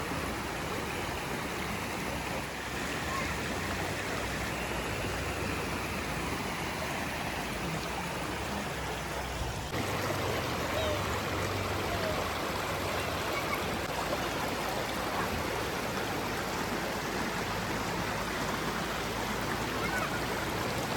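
Flowing river water, a steady rushing noise. The sound changes abruptly about ten seconds in.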